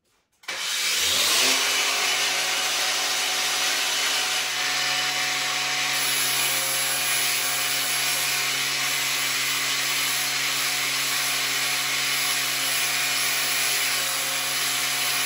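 Angle grinder switched on about half a second in, its motor winding up to speed, then running steadily while grinding, a harsh hiss over a steady hum.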